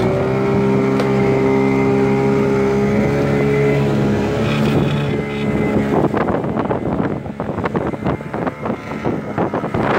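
Suzuki outboard motor running at a steady high speed. After about six seconds its tone drops away, and wind buffeting the microphone and splashing waves take over.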